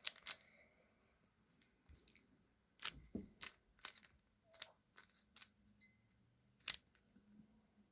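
Plastic 3x3 Rubik's cube being turned by hand: short, irregular clacks of the layers snapping round, scattered in small groups.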